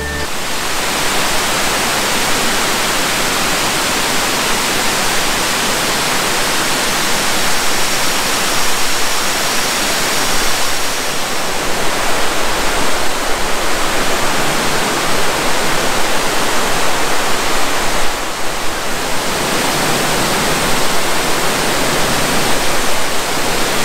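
Elephant Falls, a three-tiered waterfall carrying heavy monsoon-season flow: a loud, steady rush of falling water.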